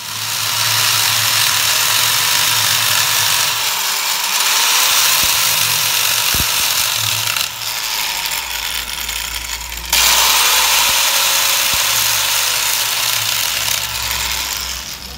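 Handheld angle grinder grinding the steel splines of a rebuilt pinion shaft: a loud, steady, harsh hiss of the disc on metal, with the motor's pitch dipping and recovering a few times under pressure. The grinding eases for a moment and comes back hard about ten seconds in.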